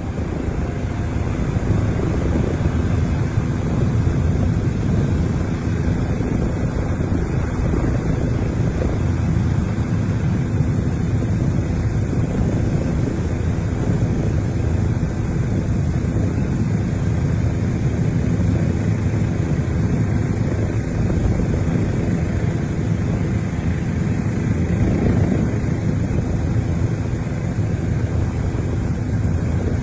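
Steady, loud drone of an aircraft's engine heard from inside the aircraft, a dense low noise with faint steady tones that does not change.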